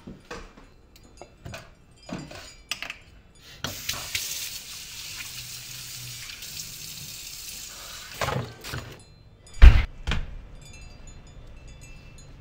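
Kitchen faucet running into a stainless steel sink for about four seconds as hands are rinsed under the stream, after a few scattered footsteps and knocks. After the water stops come two thuds, the second a heavy thump and the loudest sound.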